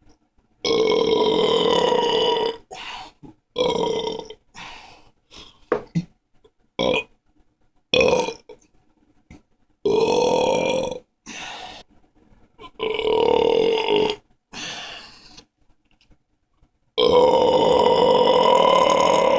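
A person belching loudly after drinking beer: a run of separate burps. Four are long and held at a steady pitch for one to two and a half seconds, and shorter burps come between them, each cut off abruptly into silence.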